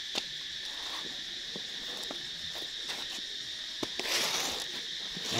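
Steady high-pitched drone of insects in the background, with scattered small clicks and knocks of handling. About four seconds in there is a loud rustle of cloth brushing close against the microphone.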